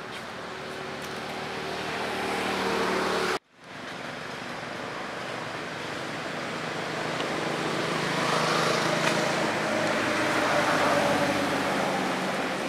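Steady outdoor rushing noise with a faint low hum that swells, cuts off abruptly a little over three seconds in, then builds again and eases off near the end.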